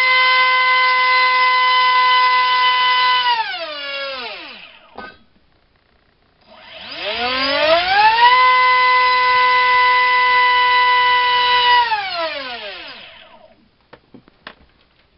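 4000kv brushless outrunner motor (TRex 450 helicopter size) driving a 4.75×4.75 propeller on a thrust stand, run at full throttle twice. The first run holds a steady high whine, then falls away as it spins down; a short knock follows about five seconds in, and after a brief pause the second run rises in pitch as it spins up, holds steady for about four seconds and winds down again. A few faint ticks come near the end.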